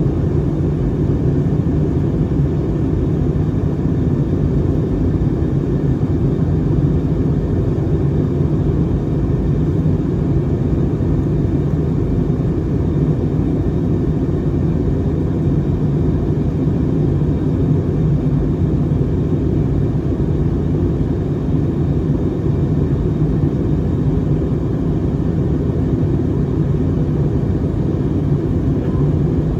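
Steady low rumble of jet engines and rushing air heard inside an airliner's cabin.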